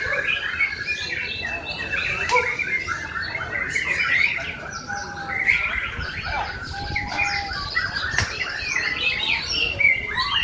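Several caged white-rumped shamas (murai batu) singing at the same time in a songbird contest: a dense, unbroken mix of whistles, trills and chirps.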